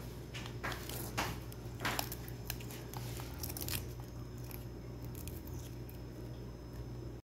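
Dry, papery garlic skins crackling and rustling as garlic cloves are peeled by hand, with scattered small clicks, over a steady low hum. It cuts off suddenly near the end.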